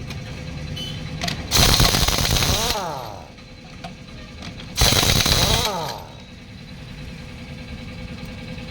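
Pneumatic impact wrench rattling in two bursts of about a second each, loosening a vehicle's wheel nuts, each burst trailing off in a falling whine, over a steady low hum.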